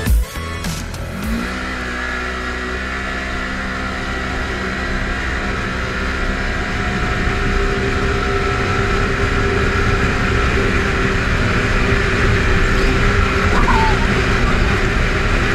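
Polaris RZR 4 900 side-by-side's twin-cylinder engine running under steady throttle while driving, heard from the open cab with a low rumble and wind, slowly growing louder.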